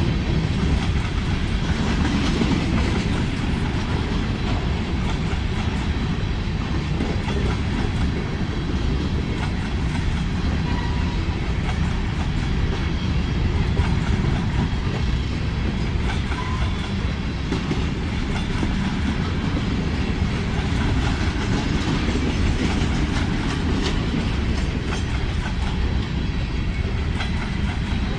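Freight train rolling past, its steel wheels clacking over the rail joints over a steady rumble.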